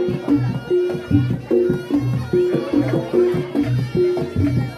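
Reog Ponorogo gamelan accompaniment: a steady repeating rhythm of drum strokes and ringing gong-chime notes, with a wavering higher melody over it.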